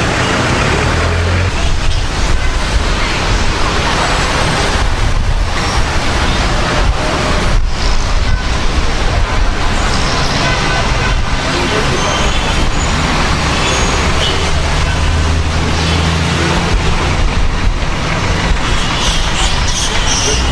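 Loud, steady rushing road and motor-vehicle noise, with a low hum that grows stronger for a few seconds near the end.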